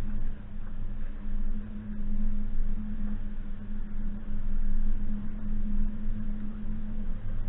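Suzuki Jimny's engine running at a steady speed, a constant low drone over the rumble of the vehicle driving.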